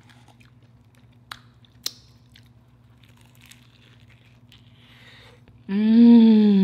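Close-up eating of a deep-fried taco: faint crackly crunches and mouth clicks, two sharper ones about a second and a half in, as the fried tortilla is bitten and chewed. Near the end comes a loud, drawn-out closed-mouth "mmm" of enjoyment, rising then falling in pitch.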